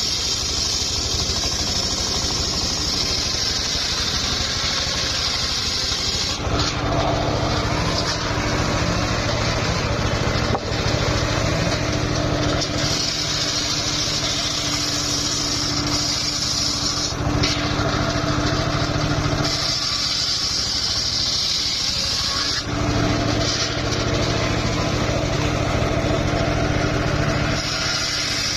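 Home-built circular sawmill running steadily with a constant low drone. A high hissing cutting noise comes and goes in several stretches of a few seconds as the blade rips old mahogany, which is somewhat hard.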